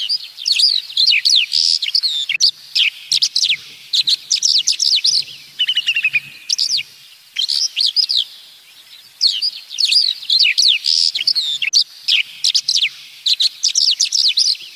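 Songbird singing: quick chirping and whistled phrases in runs of a few seconds, with a descending trill about six seconds in.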